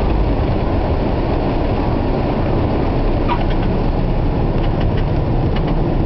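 Steady rumble of the Cessna 172M's engine and the wind inside the cabin just after landing, with a brief faint chirp about three seconds in and a few faint clicks near the end.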